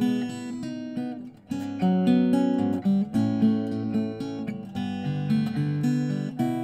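Archtop guitar playing a recorded music track: plucked notes and chords, with a short break about a second and a half in.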